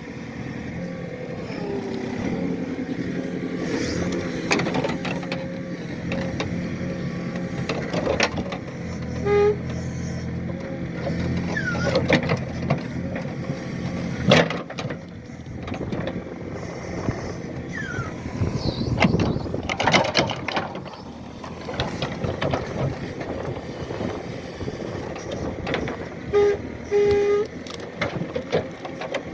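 Hydraulic excavator's diesel engine running, with scattered sharp knocks and a few short squeals as it works at pulling out tree stumps.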